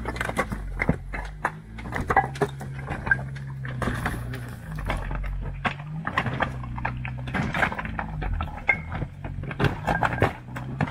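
Jeep Gladiator crawling slowly over loose rocks: the engine runs at low revs, its note rising and falling as the throttle is worked, while the tyres crunch and knock on the stones in many sharp clicks.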